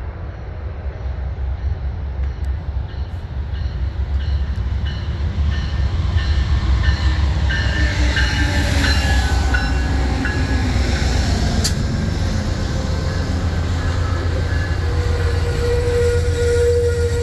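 Amtrak passenger train passing at speed: the tail of its horn fades out at the start, then the rumble builds as the locomotive nears and holds steady as the passenger cars go by, with wheel clatter over the rails. There is one sharp clank about twelve seconds in, and a steady squeal-like tone from the wheels near the end.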